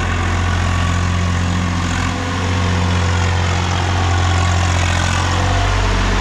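ACE Forma DI 550 tractor's Kirloskar diesel engine running steadily, with a slight change in its low note about five and a half seconds in.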